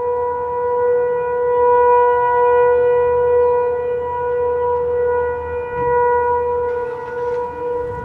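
Federal Signal 500 outdoor civil defense (tornado) siren sounding a steady tone during a test. The pitch holds steady while the loudness swells and fades about every four seconds.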